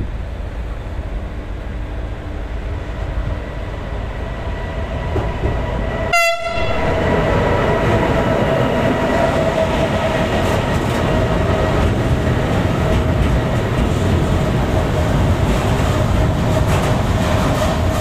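Train passing through a station: rail noise that grows louder about six seconds in, with a long, steady train horn note held over it to the end.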